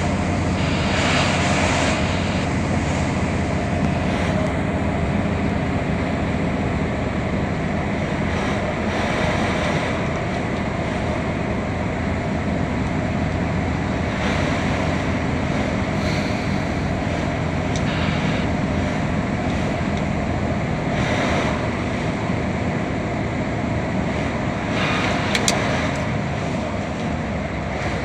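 Steady engine drone and tyre noise on a wet road, heard inside the cab of a heavy vehicle while driving. Several times a brief rushing swell rises and falls as oncoming trucks and cars go by.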